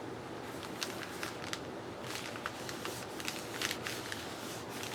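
Paper being handled and pressed into place: light crinkles and small taps at irregular intervals over a faint steady background hum.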